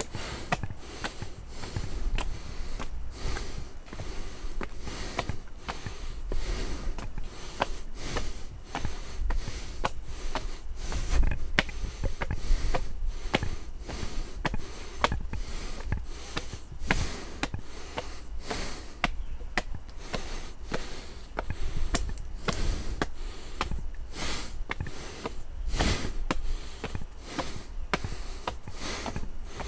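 A hiker's footsteps, about one or two a second, with heavy breathing through the nose while climbing, over a steady low rumble.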